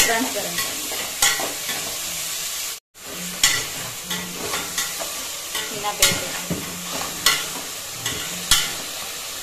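Chopped onions and green chillies sizzling in oil in a stainless steel pot, sweating down toward translucent, while a perforated steel ladle stirs them and scrapes and clinks against the pot about once a second. The sound drops out for a moment about three seconds in.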